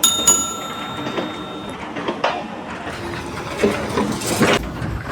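A sudden clang that rings on in several high tones for about a second and a half, followed by scattered knocks and a short scraping rush near the end.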